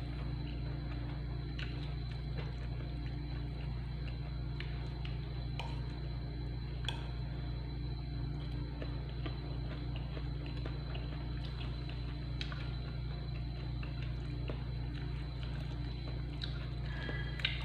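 A metal spoon stirring rice and vegetables on a ceramic plate, with a few scattered sharp clicks of the spoon against the plate, over a steady low hum.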